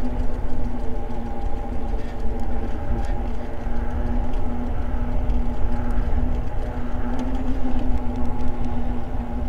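Electric bike riding at a steady cruising speed on pavement: a steady, even-pitched hum from its motor and rolling tyres, over a low wind rumble on the microphone.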